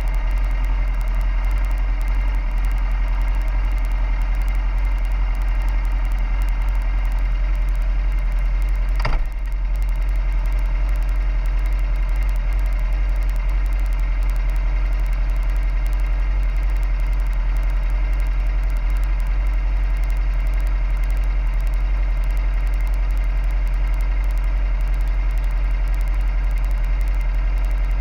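A vehicle engine idling steadily close to the microphone, an even low rumble with no change in speed. One sharp click comes about nine seconds in.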